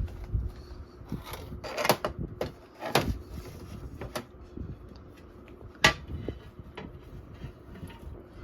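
Kitchen handling noise: several sharp knocks and clatters of utensils and containers against the cooking pot as onions and garlic go in, the loudest about six seconds in.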